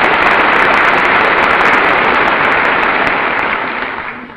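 Large audience in the House chamber applauding: dense, steady clapping that fades out near the end.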